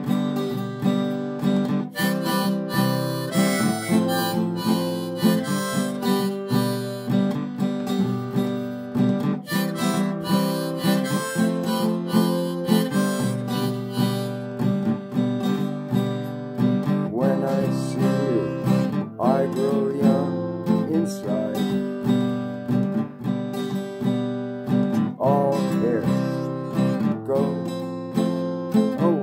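Harmonica in a neck rack playing a melody over a strummed acoustic guitar: an instrumental break without singing.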